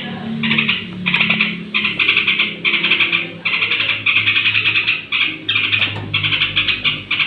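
Yellow-vented bulbul (trucukan) giving its pre-roost chatter: runs of fast, rattling notes, one after another with short breaks, over a faint low hum.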